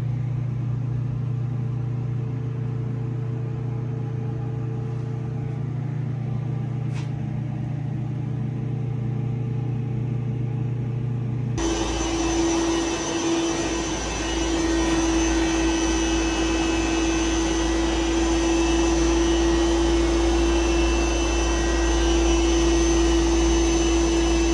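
Low steady machine hum, then, changing abruptly about halfway, the louder steady whir of a building's main water circulation pump motor running, with one steady tone over it.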